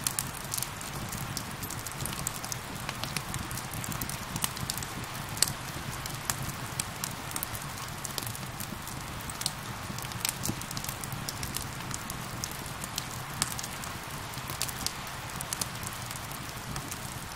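Steady rain with a wood fire crackling, sharp irregular pops scattered throughout.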